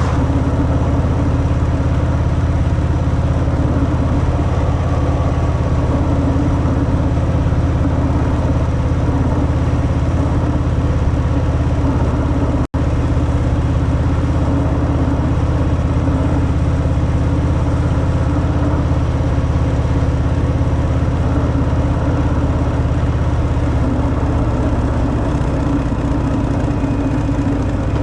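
Harley-Davidson Fat Boy V-twin with its stock exhaust, running at a steady, unchanging engine speed. The sound cuts out for an instant about halfway through.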